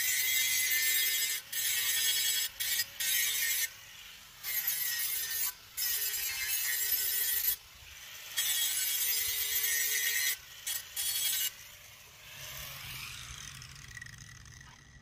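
Handheld angle grinder sharpening a steel lawn mower blade held in a vise: a harsh, high grinding hiss in stretches of one to three seconds, with short breaks as the wheel comes off the blade between passes. The grinding stops about eleven and a half seconds in.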